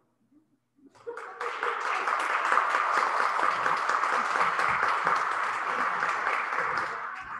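Applause from a small group of people, starting about a second in and stopping shortly before the end.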